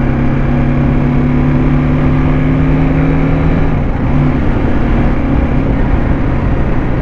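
BMW G310 GS's single-cylinder engine pulling steadily while riding, heard from the rider's seat over wind rush. The note rises slightly, dips briefly about four seconds in, then carries on.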